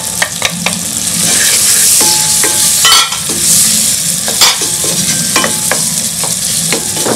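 Chopped tomatoes and onions sizzling in oil in a pot while a wooden spatula stirs them, with frequent sharp scrapes and knocks of the spatula against the pot, the loudest about three and four and a half seconds in.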